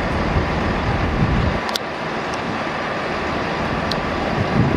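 Steady railway station ambience, a noisy rumble from a diesel multiple unit standing at the platform with its engine running, with two brief clicks partway through.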